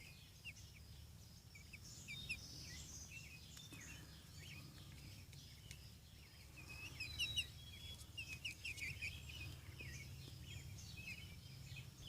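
Faint birds chirping: many short chirps, busier from about seven seconds in, over a steady low hum.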